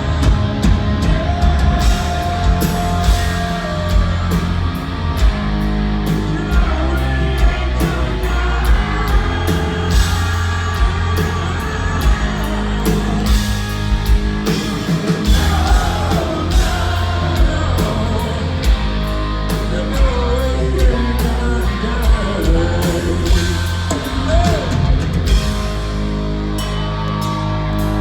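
Rock band playing live: electric guitar, bass and drums keeping a steady beat, with a singer's voice over them.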